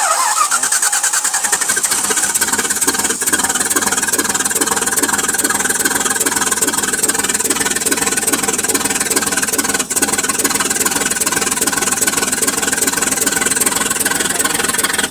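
1975 Rolls-Royce 6.75-litre V8 engine catching on start-up, loud from the first instant, then running steadily.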